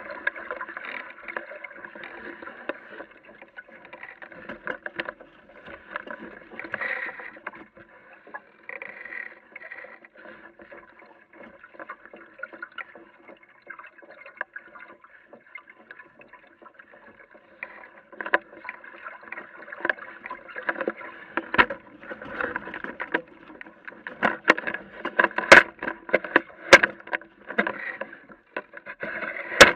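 Water washing and gurgling along the hull of a small Aquamuse sailboat under way. In the last third, sharp slaps and knocks against the hull come more often and louder.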